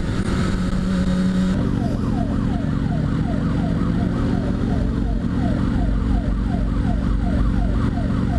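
Kawasaki Ninja ZX6R inline-four motorcycle engine running, its note stepping up about one and a half seconds in. At the same moment an emergency-vehicle siren starts yelping, a quick falling wail repeating two to three times a second.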